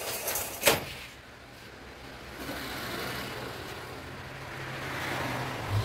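A single sharp knock under a second in, then the steady hum of a motor vehicle's engine and road noise growing louder as it passes.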